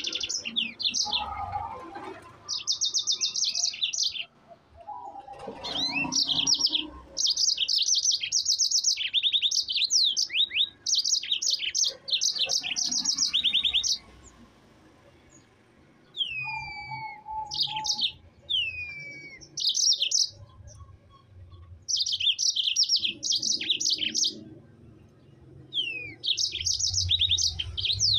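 Caged yellow-fronted canary (mozambik) in full song: long, fast trilled rolls of high notes, broken by a few downward-sliding whistles and a short pause about halfway.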